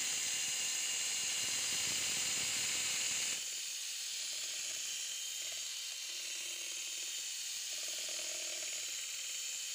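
Electric hand mixer running steadily, its twin beaters whipping cream in a metal bowl. The whir drops somewhat in level about three and a half seconds in.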